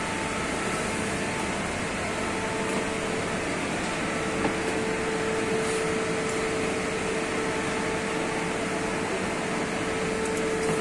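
Steady whirring hum of running cooling fans and electrical equipment, with a steady mid-pitched tone running through it that grows a little stronger about halfway through.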